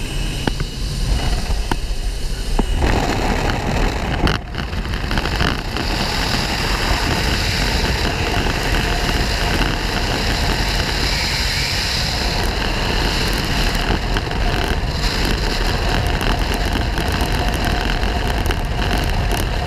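Small jump plane's propeller engine running at jump-run power, with the rush of slipstream wind coming through the open jump door over the camera microphone. The noise is loud and steady and grows louder about three seconds in.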